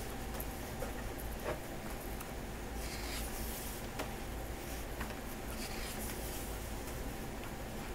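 Pages of a photobook being turned and smoothed flat by hand: soft paper swishes and rubbing, with a few faint clicks.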